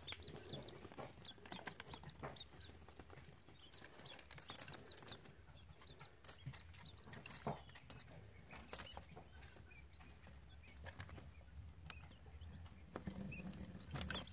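Three-day-old quail chicks peeping faintly: many short, high cheeps scattered throughout, with occasional light clicks.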